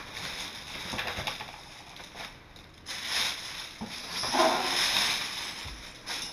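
Clear plastic wrapping crinkling and rustling as it is pulled off a metal Keyblade replica, in several uneven bursts, loudest about four to five seconds in.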